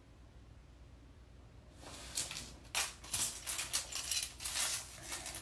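Heavy metal chain necklaces clinking and rustling as they are handled, a rapid jumble of small sharp clicks that starts about two seconds in after a quiet stretch.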